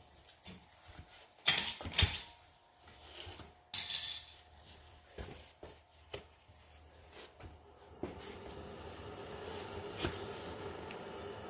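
Metal parts and tools clinking and clanking on a hard surface, with a few sharp knocks, the loudest near two seconds and about four seconds in. About eight seconds in, a steady faint mechanical hum starts and runs on.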